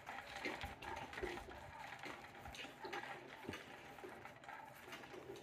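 Faint whirring and irregular clicking from a battery-powered cat toy, its motor turning a wand under a round fabric cover.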